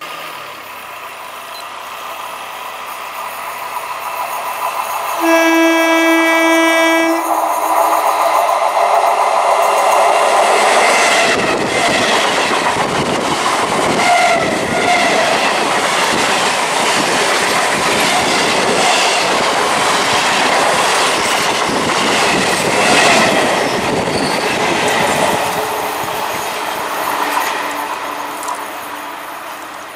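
Electric multiple unit local train approaching at speed, sounding its horn once for about two seconds, then rushing past with rhythmic wheel clatter over the rail joints before fading away.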